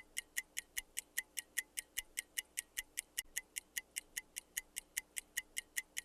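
Steady clock-style ticking, about five even, sharp ticks a second, with nothing else audible between them.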